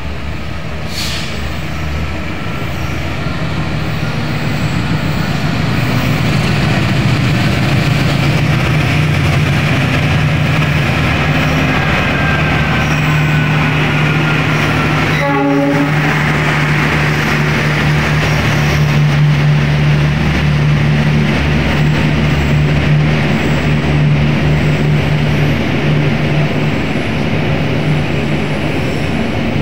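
Diesel-electric locomotive hauling an intercity passenger train through the station, its engine running with a steady low hum under the rumble of wheels on the rails, growing louder over the first several seconds and then holding. A faint high squeal slowly falls in pitch in the first half.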